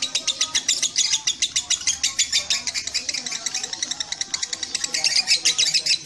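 Fischer's lovebird chattering in one long unbroken run of rapid, sharp chirps, about ten a second. This is the sustained 'ngekek' chatter that Indonesian contest keepers breed and judge lovebirds for.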